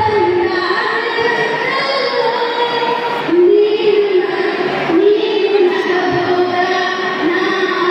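A girl singing solo into a handheld microphone, holding long drawn-out notes that glide from one pitch to the next.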